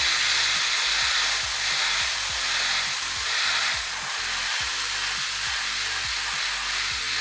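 Airbrush spraying paint in one steady, continuous burst: an even hiss of compressed air and atomised paint, with faint low pulses underneath.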